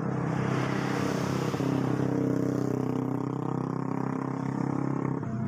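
A motor vehicle driving past on a road, its engine and tyre noise swelling, with the engine note sliding down in pitch as it goes by.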